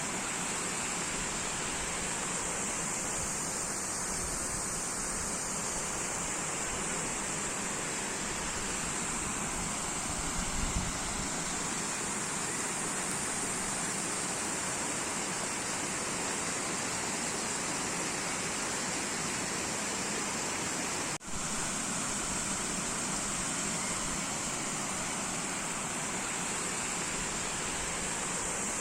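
Flowing water rushing steadily and evenly, with a split-second break about two-thirds of the way through.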